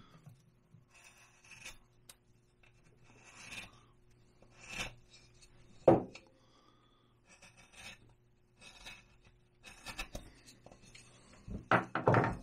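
Hand carving gouge shaving basswood: a series of short, quiet scraping cuts, with a sharp click about six seconds in and a few louder knocks near the end.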